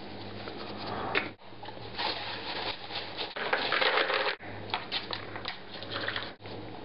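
Scraping and rubbing handling noises over a steady low electrical hum, cut off abruptly several times.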